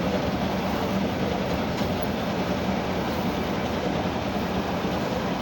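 Silage bale wrapping machine running: steady mechanical noise with a constant low hum.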